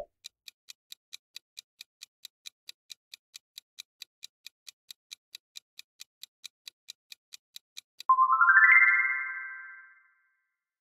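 Quiz-game countdown timer sound effect: a short burst as the question comes up, then steady ticking at about four to five ticks a second. About eight seconds in, the ticking stops and a bright rising chime rings out and fades over about two seconds, marking time up and the answer reveal.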